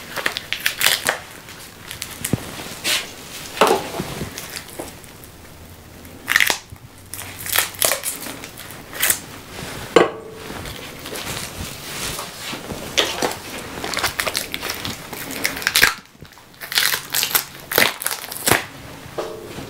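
Stiff plastic blister packaging of new titanium drill bits being cut open with scissors and pulled apart: irregular crackling, crinkling and snipping.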